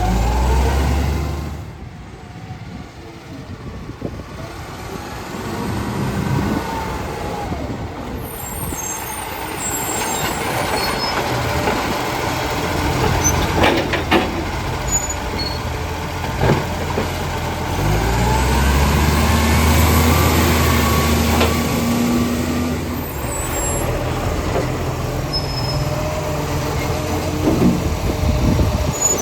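Garbage truck's diesel engine running and revving up, growing heavier about halfway through, with a few short sharp knocks.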